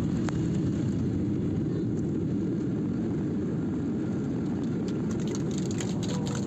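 Steady low rumble of an airliner's engines, with a few faint ticks near the end.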